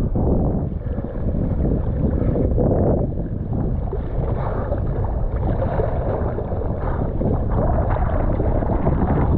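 Strong wind buffeting an action camera's microphone, with choppy sea water sloshing and splashing close by as a kitesurfer is pulled through it.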